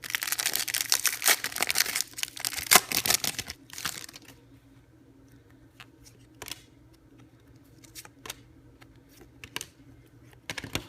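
A hockey card pack's foil wrapper being torn open and crinkled for about four seconds, followed by a few light clicks and taps as the cards inside are handled.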